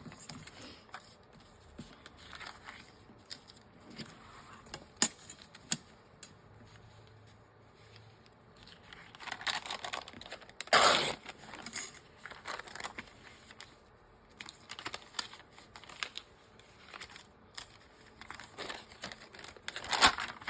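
Sheets of paper being handled and torn by hand: rustling and crinkling with small taps. The loudest sound is a longer tear about ten seconds in, and there is another tear near the end.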